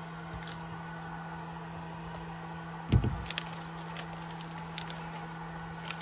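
Small hardware parts being handled at a workbench: a few faint, sharp clicks over a steady background hum, and one short, low thump about three seconds in.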